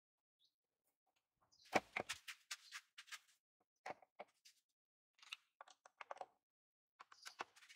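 Faint, scattered handling sounds of a cloth bag and string being tied onto a small plastic blower fan: short rustles and clicks in several bunches, with one dull knock about two seconds in.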